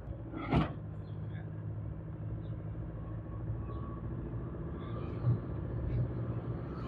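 Car driving: steady engine and road rumble, with a short knock about half a second in and a low thump about five seconds in.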